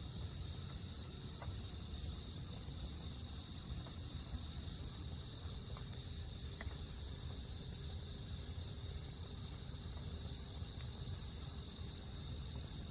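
Crickets chirping steadily in a pulsing high trill, over a low steady rumble, with a few faint pops from a wood campfire.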